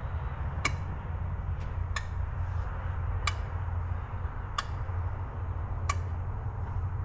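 6.0 Powerstroke diesel fuel injectors clicking one at a time during the key-on, engine-off injector buzz test, a sharp click about every 1.3 s, five in all, over a steady low hum. The full run gives only seven clicks instead of eight: one injector, on cylinder one, isn't firing.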